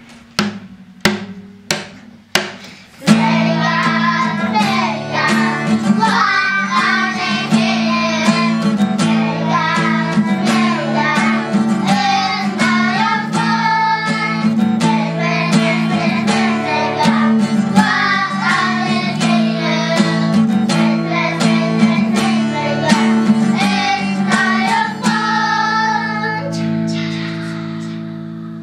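A group of young children singing together over instrumental accompaniment. A few separate struck notes open it, the singing begins about three seconds in, and it stops a few seconds before the end while a held chord fades.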